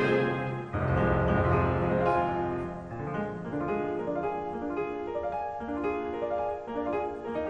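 Piano music playing a quick run of notes, with a heavy low chord struck just under a second in.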